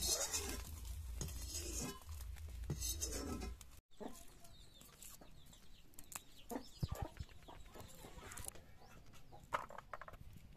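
Oil sizzling in a wok as a spatula stirs the frying, with chickens clucking over it. About four seconds in, the sound cuts to quieter small clicks and rustles of garlic cloves being peeled by hand.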